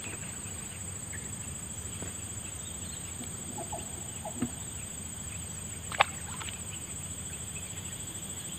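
Forest insects, crickets or cicadas, keep up a steady high pulsing chirr, with a few faint short chirps in the middle. A single sharp click comes about six seconds in.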